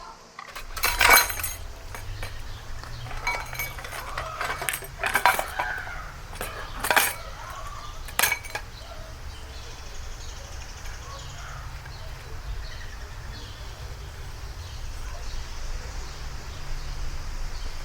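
Utensils clinking: about five sharp, ringing clinks in the first half, over a steady low rumble.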